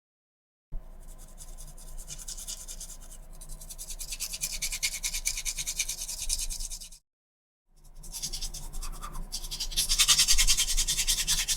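Teeth being brushed with a toothbrush: fast back-and-forth scrubbing strokes. There are two stretches, broken by a short pause about seven seconds in, and the second stretch is louder.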